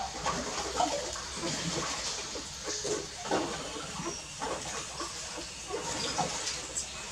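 Several puppies suckling at their mother's teats: a busy, irregular run of wet sucking and smacking noises.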